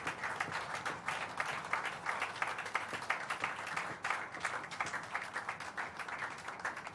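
A room full of people applauding: many hands clapping in a dense, steady stream.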